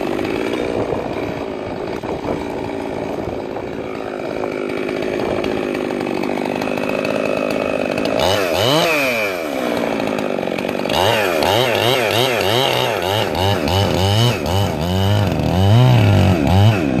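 Two-stroke Stihl MS441 chainsaw, bored out to 52 mm and running a 28-inch bar, runs steadily at first. About eight seconds in it revs up and back down once. From about eleven seconds it runs at full throttle with its pitch wavering up and down as it cuts into an oak round.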